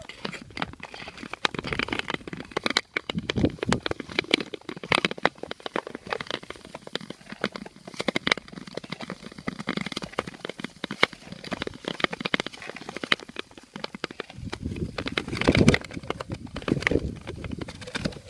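Nordic touring skates gliding over natural lake ice: a dense, irregular run of clicks and crackles from the blades and the ice. A louder low rumble comes about fifteen seconds in.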